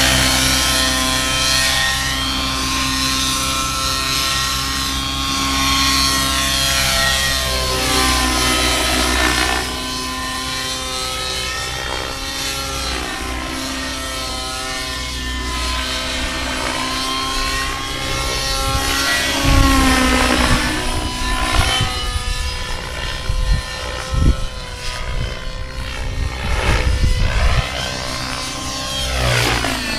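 Align T-Rex 700 nitro RC helicopter flying 3D aerobatics. Its glow-fuel engine and rotor whine continuously, the pitch swooping up and down over and over as the helicopter manoeuvres. Low rumbling knocks come in the second half.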